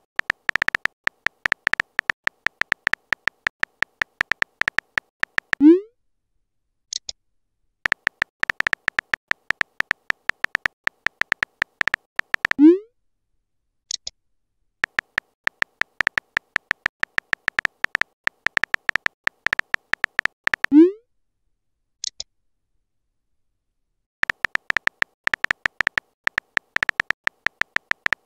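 Simulated phone-keyboard typing clicks from a texting-story app, in rapid runs of taps. Three times a run ends with a short rising pop as the message is sent, followed about a second later by a brief high chime as the next message comes in.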